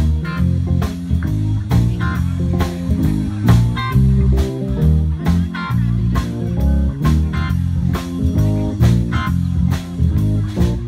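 Live rock band playing an instrumental surf rock medley: electric guitar and bass guitar over drums with a steady beat.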